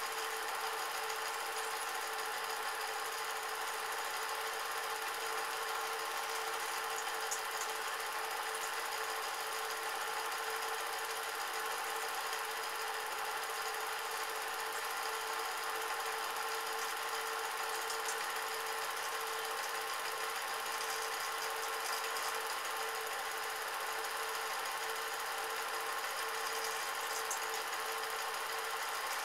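Cine film projector running: a steady mechanical whirr with a constant hum, unchanging throughout.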